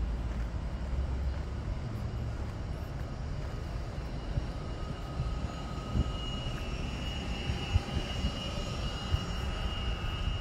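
Jet aircraft passing overhead: a high, steady whine grows louder from about halfway through over a low rumble, with a few short knocks.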